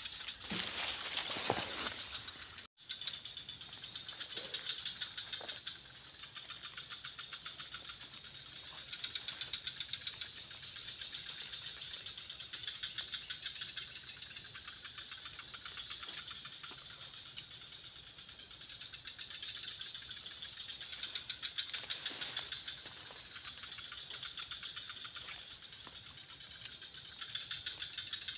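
Chorus of tropical insects calling without pause: a constant high whine over a fast, dense pulsing trill.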